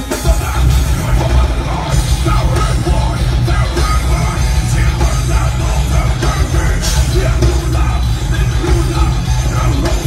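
Rock band playing live through an outdoor stage PA: electric guitars, bass and drums in a loud, heavy, continuous song.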